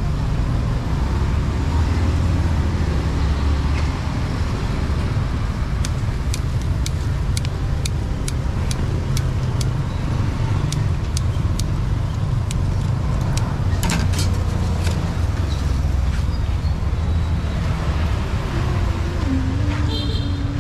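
Street traffic with engines running, a steady low rumble throughout. A run of sharp, regular ticks, about three a second, comes in for several seconds in the middle.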